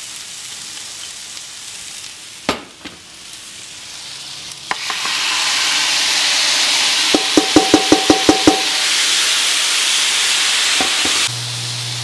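Vegetables sizzling loudly as they go onto a hot grill, the sizzle starting about five seconds in. Around the middle comes a quick run of about eight ringing metal clinks. Near the end the sizzle drops and a low steady hum comes in.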